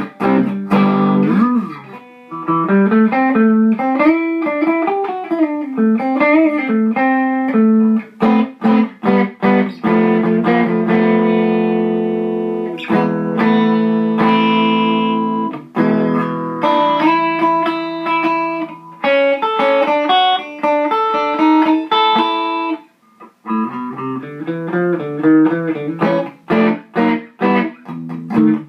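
Les Paul-style electric guitar played through a modded Fender Champ 600 tube amp set at 4 on the volume, into a 12-inch Celestion G12H speaker, giving a smooth, crunchy tone. It plays single-note lines with string bends and held chords, with a short break about 23 seconds in.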